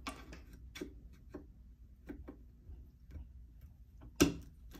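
Irregular clicks and taps of needle-nose pliers on a guitar amplifier's metal back panel as the power cord's strain relief is worked into its hole, with one sharp, much louder click about four seconds in.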